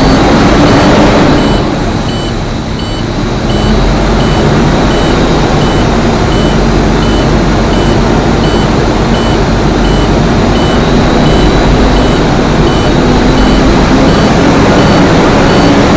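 International truck's diesel engine running at high idle while the low air warning buzzer beeps steadily in even, repeated beeps: the air brake system is still below about 60 psi as the compressor builds pressure from empty tanks.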